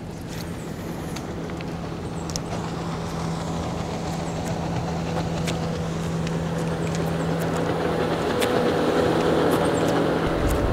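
Boat motor running with a steady hum, growing gradually louder.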